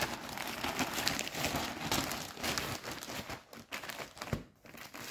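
Plastic crinkling and rustling as a plastic shipping mailer is opened and handled and a jersey in a clear plastic bag is pulled out. A dense crackle that thins out toward the end.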